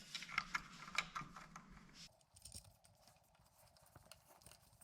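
Irregular small clicks and taps of a bolt on the light fixture being tightened back down by hand, busiest for the first two seconds, then fainter and sparser.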